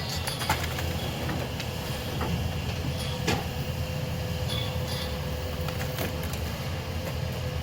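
Heavy demolition machinery running steadily, with scattered knocks and cracks of debris as the house is torn down. A sharper crack comes a little over three seconds in.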